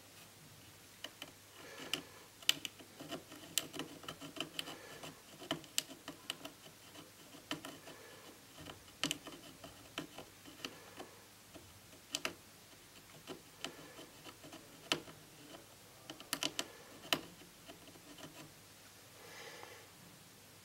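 Small metal hand tool clicking and scratching irregularly against the broken copper traces of a TV panel's COF flex cable, as the water-damaged traces are worked on for reconnection. Faint, light taps and scrapes that come in uneven clusters, thinning out near the end.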